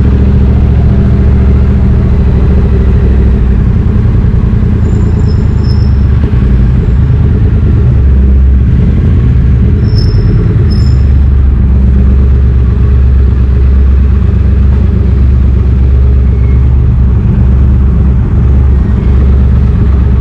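Triumph Street Twin 900's parallel-twin engine running steadily through British Customs slash-cut exhaust tips, a deep even exhaust note with no big revs. Brief high-pitched chirps sound about five and ten seconds in.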